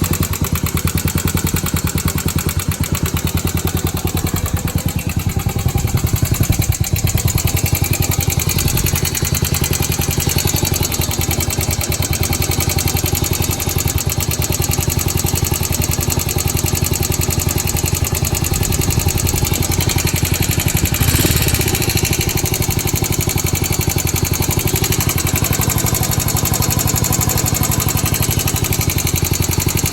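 Honda Super Cub's single-cylinder four-stroke engine idling steadily, with a brief swell about two-thirds of the way through. It carries an abnormal mechanical noise whose cause the owner does not know.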